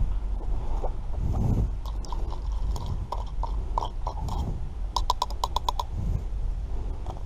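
Metal spoon stirring noodles in a metal camping pot, with scraping and scattered clinks, then a quick run of about seven clinks about five seconds in.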